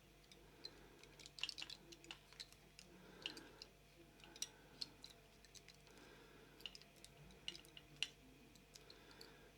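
Faint, irregular small clicks and scrapes of a Stanley knife cutting the outer sleeve off a multi-core wire.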